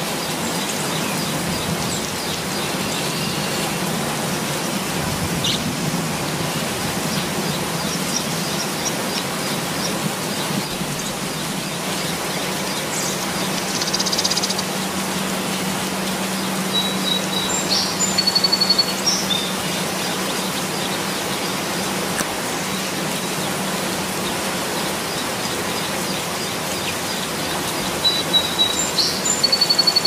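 Steady rain falling on tree foliage, an even hiss, with a bird calling now and then: short runs of quick high chirps about halfway through and again near the end.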